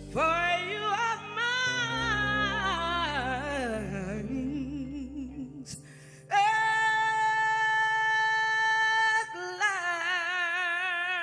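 A female soul singer ad-libbing without words over a held band chord. She sings a long run that slides up and down and works downward, then holds a long high note steady before moving to another held note with wide vibrato. This is the closing vocal cadenza of a slow soul ballad.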